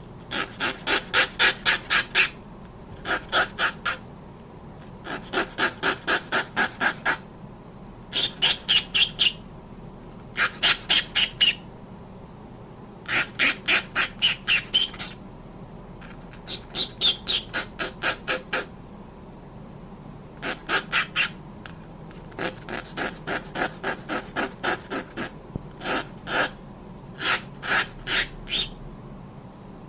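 Small hammer tapping on a straight razor's pivot pin to peen it, in quick runs of light taps about five a second with short pauses between. The glancing blows mushroom the pin end into a burr over the washer to lock the scales together.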